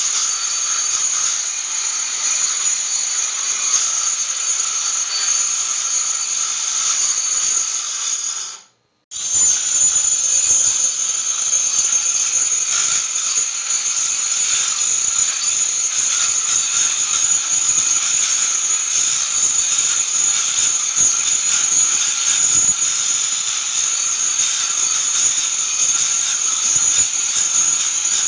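Angle grinder fitted with a cup wheel grinding a marble floor, running steadily with a high-pitched whine and hiss, grinding down the raised high spots of the surface. The sound cuts out completely for a moment about nine seconds in, then resumes.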